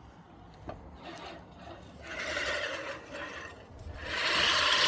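Manual push reel mower cutting grass: the spinning reel gives a rasping whir that starts about two seconds in, drops off briefly, then runs louder and steadily from about four seconds.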